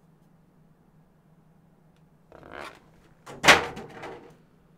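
Packaging being handled on a desk: a short rustle a little before halfway, then a louder sharp knock and crinkle about three-quarters of the way through, over a faint steady hum.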